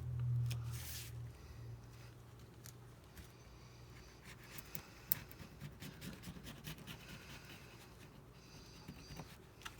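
Light scratching and small clicks of a hand tool worked over the iPad's frame, with one sharper tick about five seconds in.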